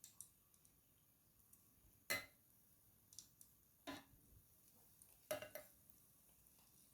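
Mostly near silence, broken by about five faint, short clicks and knocks from kitchen utensils and a cooking pot being handled.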